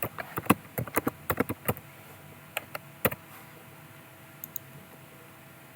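Computer keyboard typing: a quick run of keystrokes for about the first two seconds, then a few scattered key clicks.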